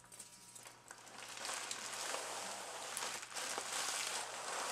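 Bubble wrap and plastic packing crinkling and rustling as they are handled, starting about a second in and going on as a steady crackle.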